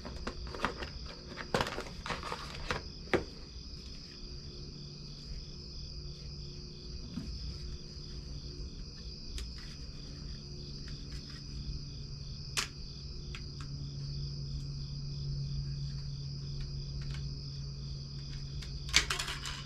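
Crickets chirping steadily in the background, with scattered sharp clicks and taps of the plastic welding helmet being handled and taken apart. A low hum sets in a few seconds in.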